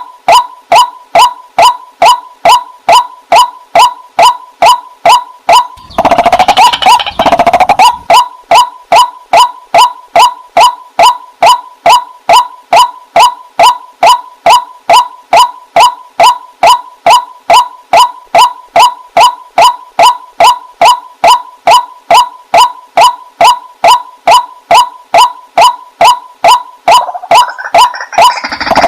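White-breasted waterhen ('wak-wak' bird) calling over and over in a steady, rapid series, about two calls a second. A louder, rougher burst of sound about six seconds in lasts roughly two seconds, and another rough sound starts near the end.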